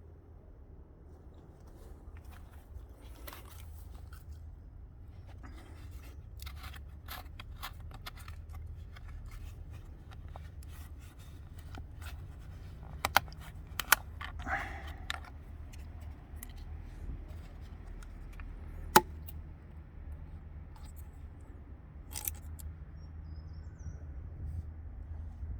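Scattered light metallic clicks and clinks of tools and parts being handled, with a few sharp single clicks, over a steady low hum.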